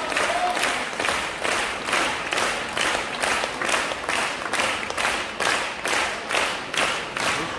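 Opera audience clapping in unison, a steady rhythmic ovation of a little more than two claps a second.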